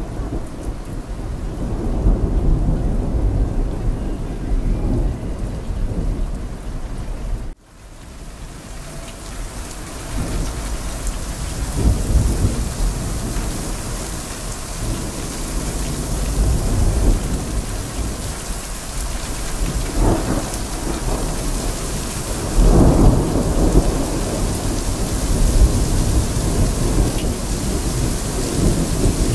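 Heavy rain with thunder rumbling again and again, the rumbles swelling and fading over several seconds each. About seven and a half seconds in, the sound cuts out for an instant and swells back in.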